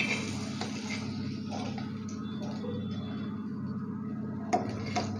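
Metal spatula scraping and clinking against a flat iron tawa and a steel plate as fried fish steaks are lifted off the griddle. The sharpest clinks come right at the start and twice near the end, all over a steady low hum.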